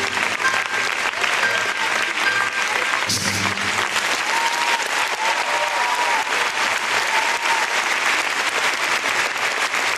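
Arena audience applauding loudly, with the end of the skaters' programme music under it for the first few seconds.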